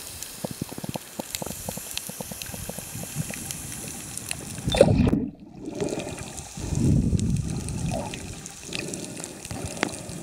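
Underwater audio from a snorkeller's camera: scattered sharp clicks, then water sloshing and gurgling in two loud surges about five and seven seconds in.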